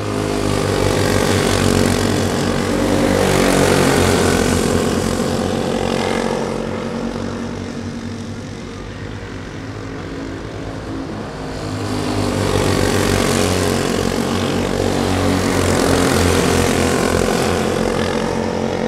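Go-kart engines running as the karts race. They grow louder twice as the karts pass close and fade in between.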